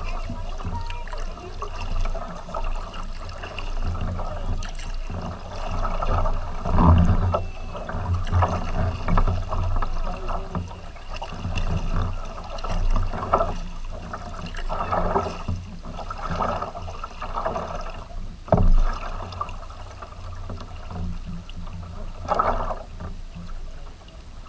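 Tandem kayak paddles dipping and pulling through water in irregular swishes and splashes, with water washing along the hull, picked up by a camera on the kayak's deck. Two louder knocks stand out, about seven seconds in and again about two-thirds of the way through.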